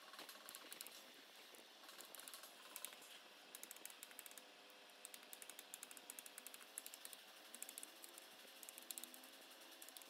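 Quick runs of faint taps from a hammer striking a wooden drift, knocking the new copper coils down into the slots of a large three-phase AC motor stator during rewinding.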